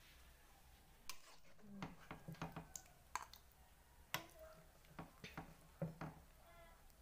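Faint clinks and scrapes of a metal ladle against an aluminium pot and a plastic bowl as stew is dished out: a scatter of short, irregular clicks.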